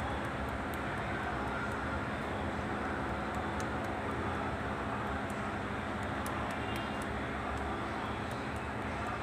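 Steady background vehicle noise, a constant drone with a low hum, with faint scattered light ticks over it.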